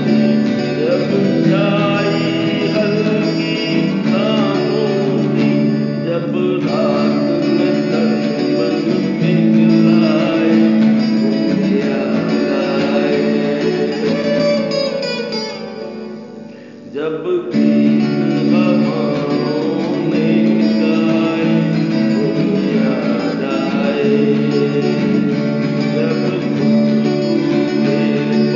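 Acoustic guitar strummed with a man singing a Hindi song, unplugged. About two-thirds of the way through, the music thins and drops in level for about a second, then comes back in full.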